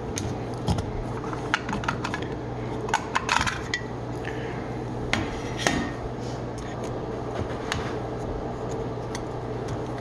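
Light metallic clicks and clinks as the sheet-metal cover of a dishwasher's electrical junction box is unscrewed and lifted off, clustered about three seconds in and again near the middle.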